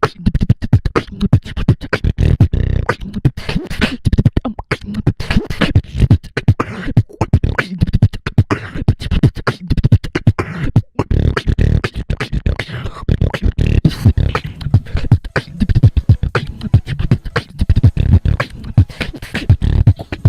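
Fast vocal beatboxing: a quick run of kick, snare and hi-hat sounds with heavy bass, rhythmic and unbroken.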